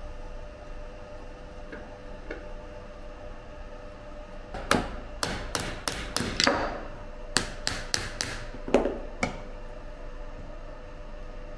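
A mallet striking a metal prism mould about a dozen times in two quick runs of sharp knocks, some with a brief ring. The knocks loosen the mould from the hardened mortar prisms for demoulding.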